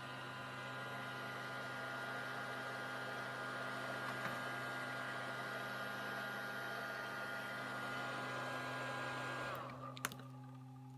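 Battery-powered high-voltage driver of a homemade Tesla coil running with a steady electrical hum and a high whine. About nine and a half seconds in it is switched off: the whine slides down in pitch and stops, followed by a couple of sharp clicks.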